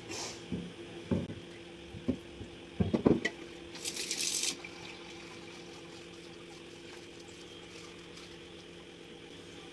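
A few dull knocks of a wooden pestle and a stone grinder against a stone mortar in the first three seconds, as pounding gives way to grinding. A short hiss follows about a second later, then quiet kitchen room tone with a faint steady hum.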